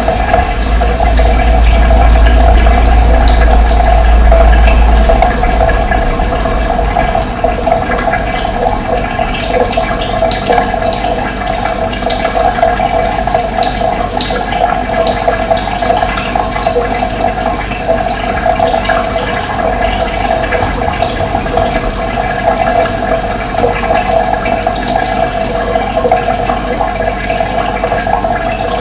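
Running water flowing steadily in a dense, even rush. A deep low rumble sits under it for the first five seconds or so, then drops away.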